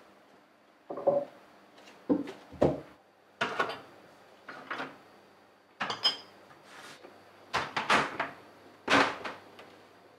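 Kitchen work sounds: about ten irregular knocks and clatters of wooden and hard items being handled, opened, shut and set down.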